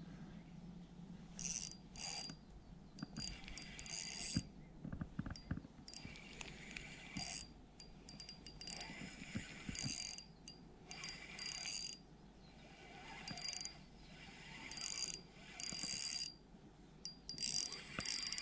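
Spinning reel being cranked in short spurts, a second or so of whirring gear noise at a time with pauses in between, as in a stepped jig retrieve.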